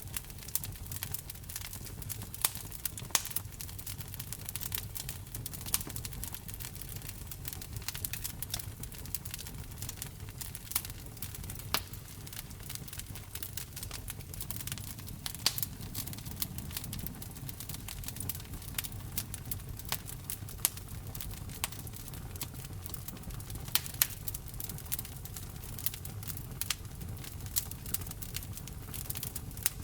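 Wood fire burning in a fireplace: frequent irregular crackles and sharp pops from the burning logs over a steady low rumble of the flames.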